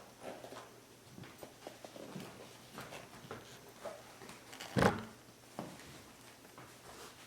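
Hands handling a shoe box and its packaging: scattered soft rustles and light taps, with one louder knock about five seconds in.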